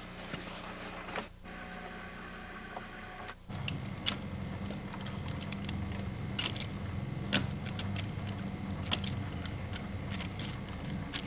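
Ratchet of a lug-nut wrench clicking as the handle is pumped up and down to loosen a lug nut torqued to 100 foot-pounds. The sharp single clicks come irregularly, roughly a second apart, over a low steady hum that starts a few seconds in.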